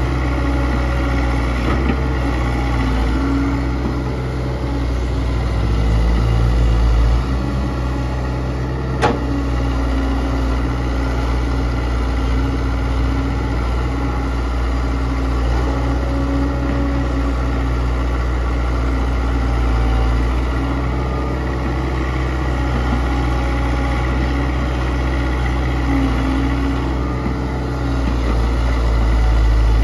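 Diesel engine of a Kobelco SK100-1 hydraulic excavator running steadily, growing louder for a moment around six seconds in and again near the end, with one sharp click about nine seconds in.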